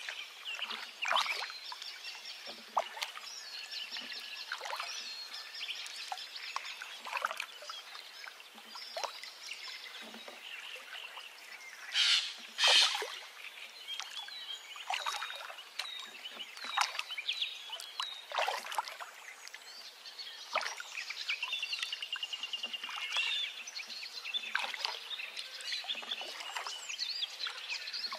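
Birds chirping and calling, with many short chirps and whistled notes and a rapid trill about two-thirds of the way through. A louder, noisier sound lasting about a second comes about twelve seconds in.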